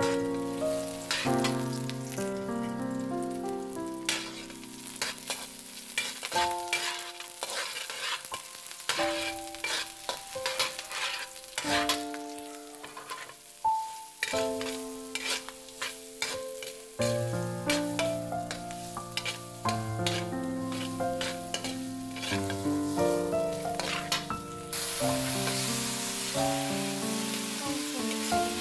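Stir-frying in a stainless steel wok: a metal spatula repeatedly scraping and tapping the pan over sizzling sliced onion, garlic and carrot strips, the sizzle growing louder near the end. Background music with a melody of held notes plays throughout.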